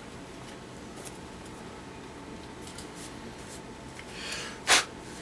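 Baseball cards being handled: quiet rustling and light ticks of cardboard cards, then a brief rustle and one short sharp sound near the end.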